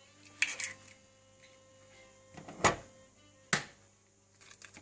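Eggs being cracked into a plastic mixing bowl: a few sharp taps and cracks of shell, the loudest two about a second apart in the second half, over faint background music.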